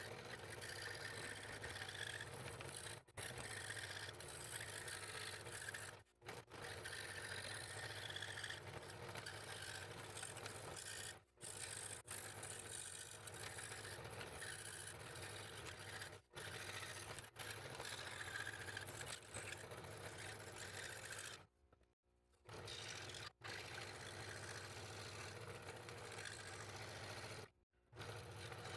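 Scroll saw running, its reciprocating blade cutting fretwork in purpleheart: a steady buzzing hum with a scraping hiss of the cut. It cuts out abruptly for a moment several times.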